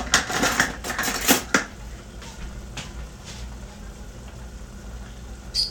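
Kitchen clatter of a bottle, containers and a metal spoon being handled over a frying pan. A quick run of knocks and clinks comes first, then a few light taps, and a single sharp clink near the end. The pan sizzles faintly underneath.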